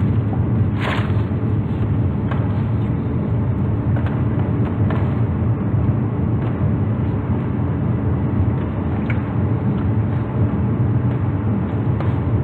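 Steady low rumble in a car cabin, with a few faint rustles of a foil sandwich wrapper being handled.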